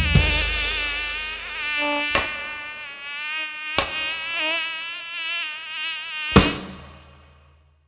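A buzzing drone like a flying insect, its pitch wavering up and down, with three sharp knocks spaced a couple of seconds apart. It fades out near the end.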